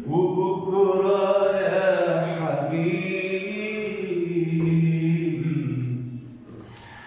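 A man singing unaccompanied, drawing out one long wordless phrase that wavers and steps slowly down in pitch, then trails off near the end.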